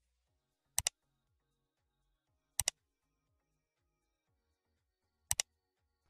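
Three computer-mouse click sound effects, each a quick pair of clicks: about a second in, near the middle, and near the end.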